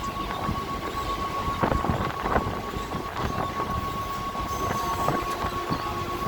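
A train running along the track: a steady rumble with irregular clacks and knocks of the wheels, over a constant high-pitched tone.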